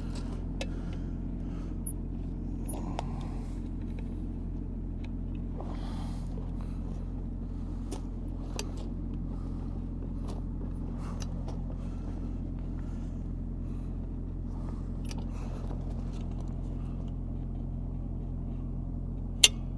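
An engine of construction equipment idling steadily, with a constant low hum, and faint scattered taps and clicks of work on top.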